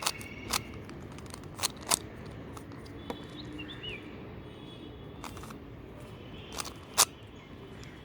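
Plastic Rubik's cube being turned by hand: a string of sharp, irregularly spaced clicks and clacks as its faces are twisted into place.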